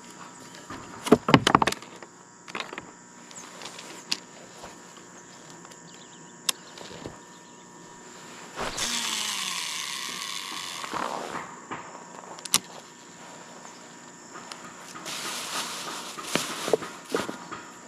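Night insects chirring steadily in a high, thin tone, with several knocks about a second in, a louder rustling, hissing burst of about two seconds in the middle, and more rustling and clicks near the end.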